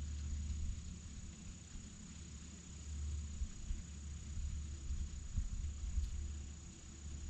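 Crickets singing one steady, thin, high-pitched trill, over a low uneven rumble.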